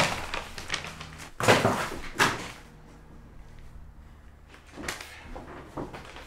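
Envelopes and papers being handled and set down on a wooden desk: a few knocks and paper rustles, the loudest about one and a half seconds in.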